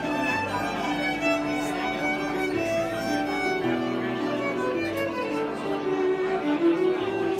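Electric violin playing a bowed melody of held notes that change every half second or so, over low sustained bass notes.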